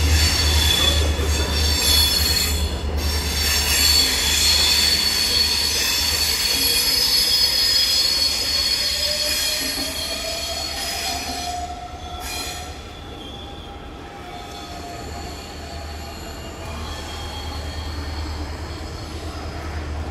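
Double-deck passenger train with an ME diesel locomotive moving through the station, its wheels squealing loud and high-pitched on the rails. The squeal dies away about twelve seconds in, leaving a low rumble.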